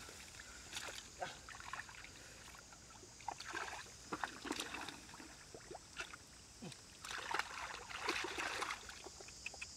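Hands sloshing and splashing in shallow muddy water while groping for catfish, in irregular bursts with small clicks. The longest burst comes about seven seconds in. A steady high hiss runs underneath.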